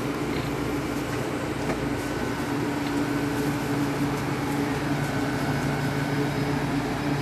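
Steady hum of cooling machinery: a low drone with a fainter tone above it, and a faint high whine in the middle stretch.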